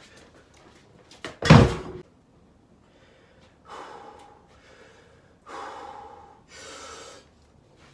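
Pair of steel farmer's walk implements, about 230 lb each, set down on a concrete floor with one heavy thud about a second and a half in. Then three hard breaths from the lifter as he rests bent over them.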